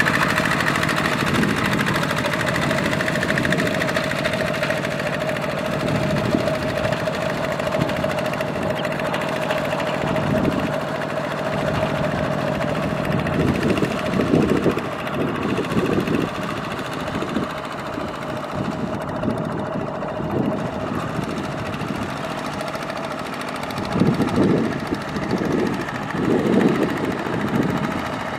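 Single-cylinder diesel engine of a two-wheel walking tractor running steadily under load while its cage wheels plow through flooded paddy mud, with a steady whine above the engine note. The sound swells louder in short surges around the middle and again near the end.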